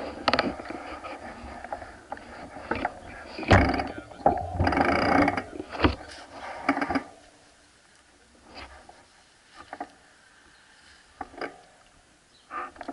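Mountain bikes being handled by a group of riders: clicks and knocks mixed with indistinct voices, busiest in the first half and thinning to scattered single clicks in the second half.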